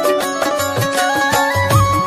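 Instrumental interlude of a Hindi devotional song, with no singing: a melody of held notes climbing in steps over a regular drum beat.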